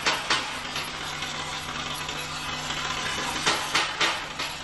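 Vibratory bowl feeder running: a steady hum from its vibrator drive under a constant rattle of screws shaking along the stainless steel track. Several sharp clicks near the start and again a cluster about three and a half to four seconds in.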